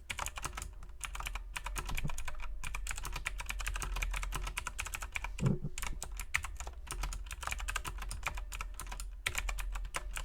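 Fast, continuous typing on a mechanical keyboard with clicky Cherry MX Blue switches: a dense run of sharp clicks, with one deeper thump about five and a half seconds in.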